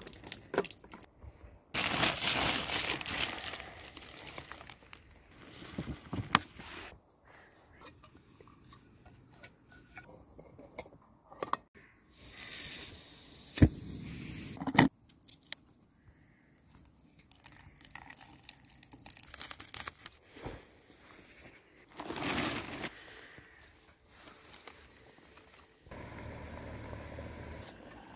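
Camp-cooking handling sounds: water splashing over hands, crinkling and tearing of packaging, then a hiss of gas and a sharp lighter click as a screw-on canister gas stove is lit. A steady burner noise runs under the pot near the end.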